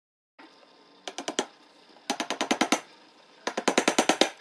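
Diagonal cutting pliers clicking against small metal brads as they are pressed into the edge of a picture-frame box to hold its backing board in place. The clicks are sharp and rapid and come in three bursts about a second apart.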